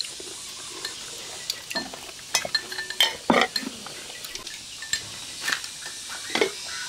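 Tableware clinking at a meal: utensils knocking against bowls and a rice pot in a scattered series of short clinks, some ringing briefly, as rice is dished out.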